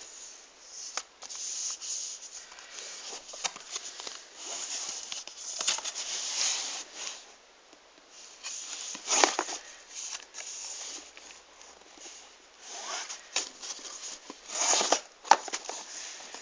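Hands handling and opening a tablet's retail packaging: irregular rustling and rubbing of cardboard and plastic, with sharp clicks now and then and louder scrapes about nine and fifteen seconds in.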